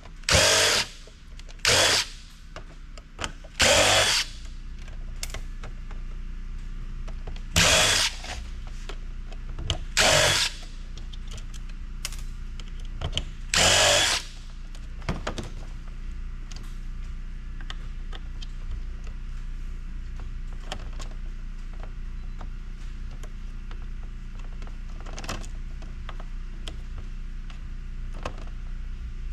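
Power drill run in about six short bursts during the first fourteen seconds, driving out screws. Then small handling clicks over a low steady hum.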